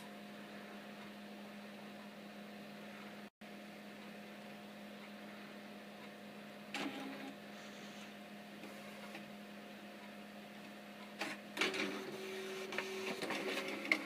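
Epson Stylus R800 inkjet printer starting a print job. A steady hum runs throughout, with a click about seven seconds in. From about eleven seconds in, the feed and carriage stepper motors whir in stepped tones with clicks as the mechanism moves, showing the printer feeding normally again.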